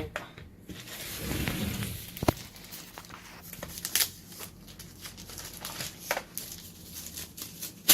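Rustling and crinkling of packaging with scattered sharp clicks and knocks, as the parts of a TV stand are unwrapped and handled.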